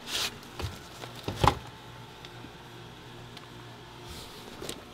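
Handling noise from a hand-held camera moving around under a car: a brief rustle, then a few dull knocks and bumps about a second and a half in, the loudest of them near the middle. A faint steady low hum sits behind it.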